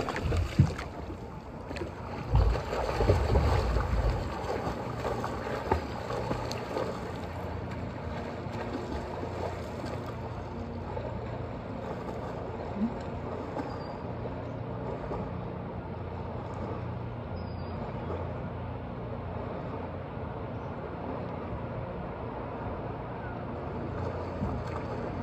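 Water lapping and sloshing right at the microphone, which sits at the surface, with wind buffeting it. It is louder and more uneven in the first four seconds, then settles to a steady wash.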